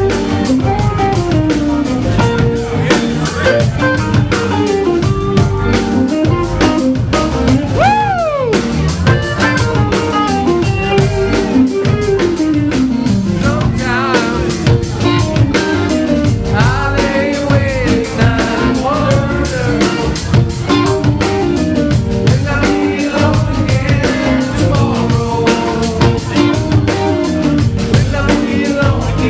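Live rock band playing a groove: drum kit keeping a steady beat under electric guitars and keyboard, with a sliding guitar-like note about eight seconds in.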